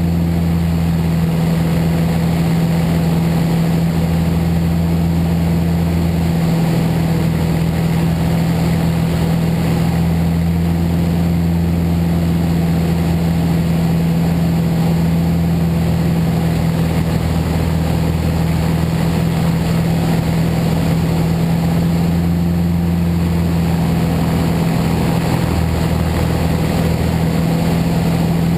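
Piston engine and propeller of a Van's RV kit plane droning steadily at a constant pitch in level flight, heard from inside the closed canopy with a hiss of airflow behind it.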